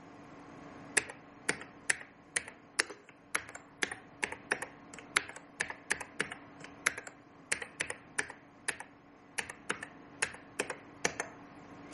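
Typing on a computer keyboard: a run of irregular key clicks, about three or four a second, starting about a second in, as a console command is keyed in.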